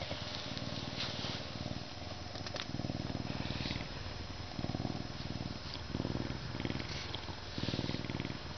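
A semi-domesticated Canada lynx purring deeply while its fur is rubbed. The rumbling purr swells and eases in surges of about a second, over the rustle of a hand in its fur.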